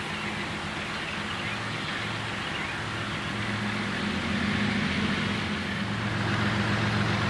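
Diesel locomotives of a CSX freight train approaching slowly at a distance: a steady low engine hum that grows louder from about four seconds in.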